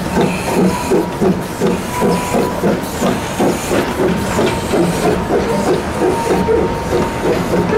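The 1922 Vulcan 2-4-0 steam locomotive 'Myron H.' is chuffing as it pulls its train. Its exhaust beats come in a steady rhythm of about three a second, each with a hiss of steam.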